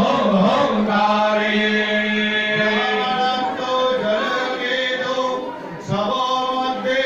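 A male voice chanting Hindu yajna mantras in long held tones, with a short pause for breath about six seconds in.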